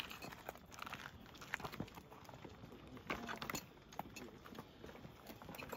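Footsteps of several people walking down a stony dirt path, an irregular patter of scuffs and small clicks.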